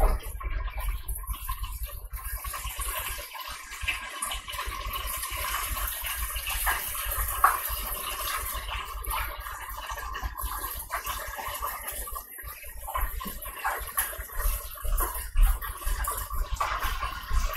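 Buttermilk-battered chicken frying in a lidded electric deep fryer: the hot oil bubbling and sizzling steadily with fine crackles.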